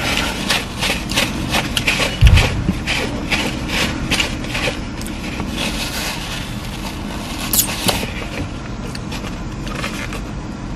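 Rustling and crinkling from handling a paper napkin and food container, in quick bursts during the first few seconds and thinning out later. There is one loud, low thump about two seconds in, over a steady low hum.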